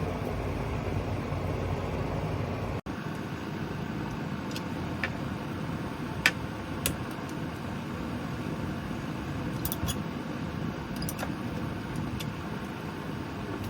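Steady whooshing of an electric fan, with a few light clicks and taps scattered through, cut off abruptly for an instant about three seconds in.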